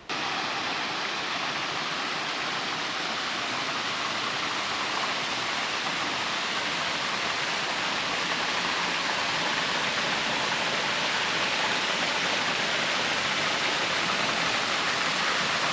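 Waterfall pouring in a steady, even rush of falling water, growing slightly louder toward the end.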